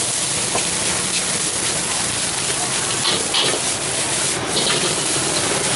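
Fried rice sizzling steadily in a steel wok as it is stir-fried, with a metal spatula now and then scraping against the wok.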